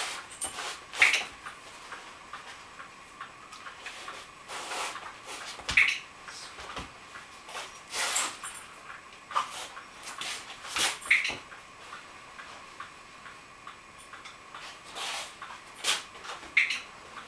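Sharp single clicks, a few seconds apart, over a faint, even ticking and a steady thin tone.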